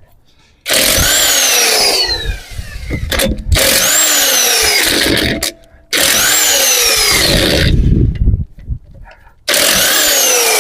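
Impact wrench running in reverse, four bursts of a second or two each, hammering the wheel's lug bolts loose. Each burst opens with a motor whine that falls in pitch.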